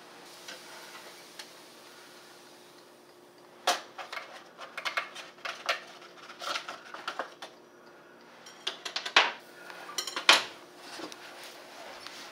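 Metal mini offset spatula clinking and scraping against a nonstick frying pan and a plate as a cooked crepe is lifted out, with the pan knocking on the glass-top electric stove. Scattered sharp clicks begin about four seconds in; the loudest knocks come near the end, just after a quick rattle.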